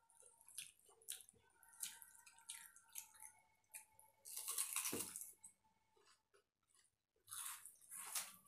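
Hands mixing water-soaked rice (panta bhat) on steel plates and mouthfuls of it being eaten: short, scattered wet eating sounds, loudest about four to five seconds in and again near the end.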